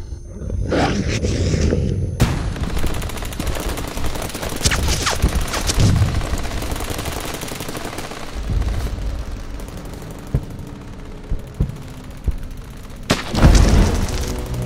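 Battle sound effects: rapid automatic gunfire with scattered shots that starts about two seconds in and keeps going, and a sharp, heavy blast near the end.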